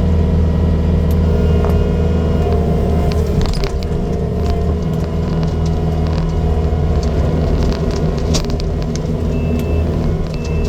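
Kubota 75-3 skid steer's diesel engine running steadily under load, heard from inside the cab, as its Blue Diamond severe duty mower attachment cuts through overgrown brush with scattered sharp cracks and snaps. A high beep repeats about once a second near the end.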